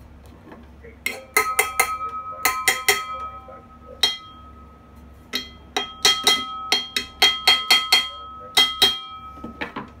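Sharp metal-on-metal taps on the bench grinder's cast motor housing, each ringing on with clear metallic tones. A quick run of taps comes about a second in, then a pause, then a second run, with a few softer taps near the end.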